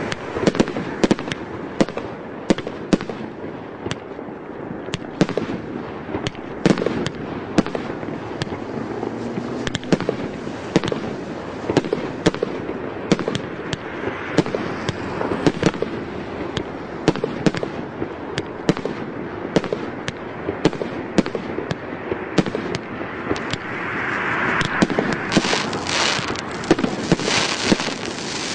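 A 30 mm consumer firework cake (CGFP-555) firing shot after shot: a quick, uneven run of sharp pops and bangs as shells launch and burst. It gets denser and louder in the last few seconds.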